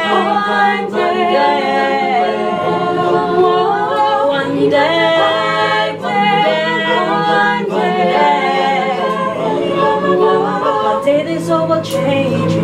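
Mixed a cappella group of men and women singing in harmony, the voices moving over low held notes from the lower voices, with no clearly worded lyric.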